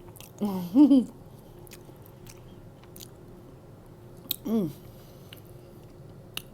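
Close-up mouth sounds of someone eating cheesy pizza fries: soft wet clicks and smacks while chewing. Two short hummed "mm" sounds come in, one rising then falling about half a second in, and a shorter falling one about four and a half seconds in.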